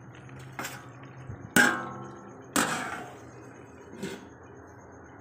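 A stainless steel plate set down as a lid on a metal kadai: four metal clanks, the two in the middle loudest and ringing briefly.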